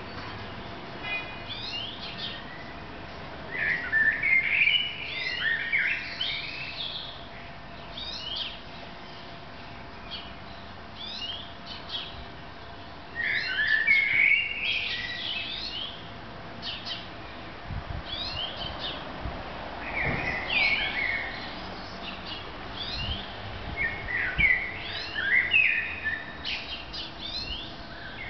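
Songbirds singing: short high chirps throughout, with louder, fuller bursts of song every several seconds. A faint steady hum lies underneath.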